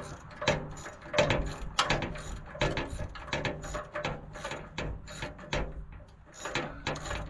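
Hand ratchet wrench clicking in repeated back-and-forth strokes as a bolt that has just broken loose is backed out of the tractor's battery box.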